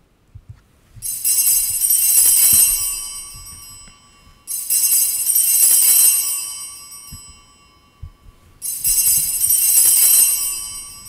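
Altar (sanctus) bells rung three times, each ring a bright shimmering peal that fades over two to three seconds, about four seconds apart. They mark the elevation of the chalice at the consecration.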